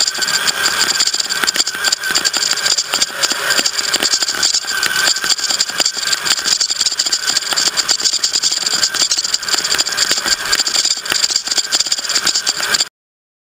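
RC rock crawler's motor and gear drivetrain running, a steady whine with a constant rattle from the chassis, heard from the onboard camera. The sound cuts off suddenly near the end.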